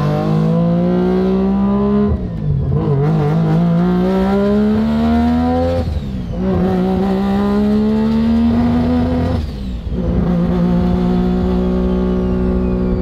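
Three-rotor Mazda RX-7's street-ported rotary engine accelerating hard through the gears, heard from inside the cabin: the pitch climbs steadily in each gear, drops at three upshifts about 2, 6 and 10 seconds in, and then holds steady at cruise.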